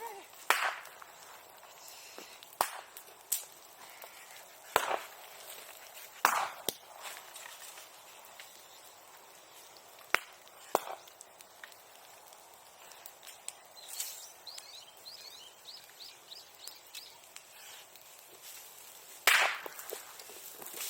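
Bonfire burning old sericulture tools, with a low crackle broken by sharp, irregular pops like firecrackers, about eight loud ones, the last and biggest near the end.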